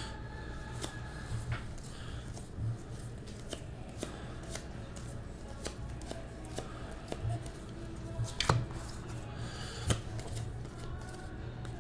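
Baseball trading cards being flipped and handled, with light snaps and rustles at an irregular pace and two sharper snaps near the end, over a steady low hum.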